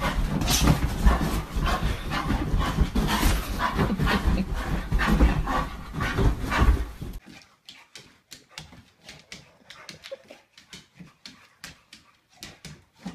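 A dog scuffling and thrashing on a mattress among pillows: loud, dense rustling and thumping of bedding. About seven seconds in this cuts off suddenly and gives way to quiet, rapid tapping of a boxer's claws on a wooden floor.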